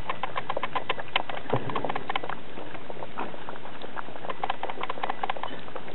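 Gray wolf pups eating: a dense, irregular run of small sharp clicks and crunches.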